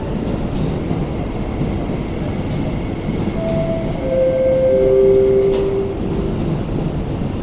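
An MTR East Rail Line electric train rumbling steadily along the station tracks, swelling a little past the middle. A chime of three descending notes sounds about halfway through.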